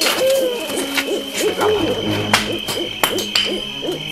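Owl hooting over and over in short calls that rise and fall, with a steady high whine behind it and a few sharp knocks at irregular moments.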